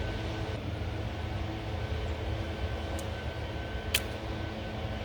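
Sharp metallic clicks of a wrench being handled while fitting supercharger piping, one small click about three seconds in and a louder one about four seconds in, over a steady low background hum.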